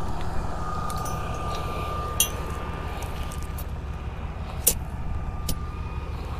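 Sand-dredging machine's engine running steadily: a low drone with a thin steady whine over it. A few short sharp clicks cut through, the loudest about two seconds in and near five seconds.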